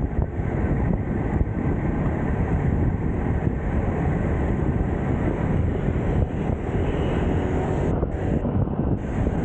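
Wind buffeting the microphone, a steady low rumble with no break, as from a camera carried on a moving bicycle.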